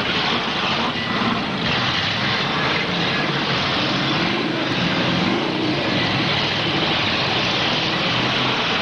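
V8 demolition derby cars running at full throttle, their engine pitch rising and falling, with wheels spinning as two cars shove against each other. It is a steady, dense roar without a single standout crash.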